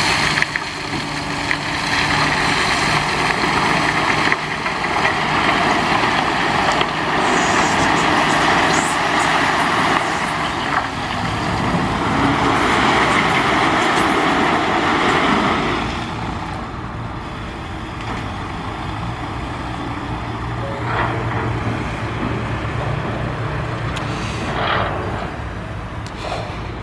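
Five-axle MAN tipper truck running while its load of crushed stone and earth slides out of the raised half-pipe tipper body and pours onto the pile, a steady rushing rattle of stone over the engine. About two-thirds of the way through the rushing dies away, leaving the truck's engine running steadily.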